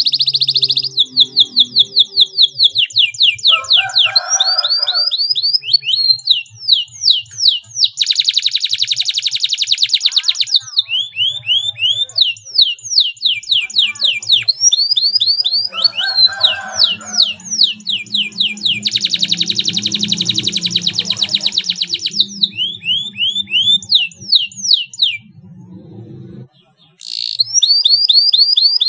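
Domestic canary singing a long song of rapid trilled phrases: runs of quick downward-sweeping notes, with two long stretches of very fast, tight rolls. The song breaks off briefly near the end and then resumes.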